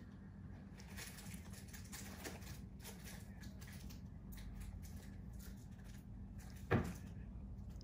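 Faint, scattered ticks from a fine metal tweezer picking blackheads out of nose pores, over a steady low hum, with one short louder thump near the end.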